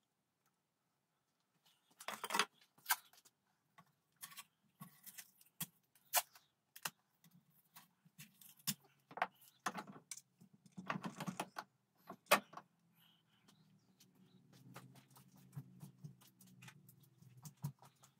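Scattered clicks, knocks and light metallic clinks as a rifle barrel and wooden gunstock are handled and fitted together in a bench vise. The loudest knocks come about 2, 6 and 12 seconds in.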